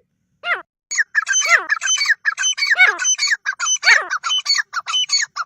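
Teetar (francolin) calling: one short call about half a second in, then a fast, dense run of harsh, overlapping calls with repeated high notes that stops just before the end.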